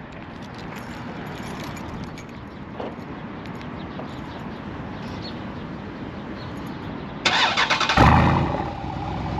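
A 2019 Jeep Grand Cherokee SRT's 6.4-litre HEMI V8 is remote-started from the key fob. About seven seconds in, the starter cranks briefly and the engine catches with a loud flare, then settles to a steady idle through its modified exhaust (mid mufflers cut, valved mufflers). It is a warm start, not a cold start.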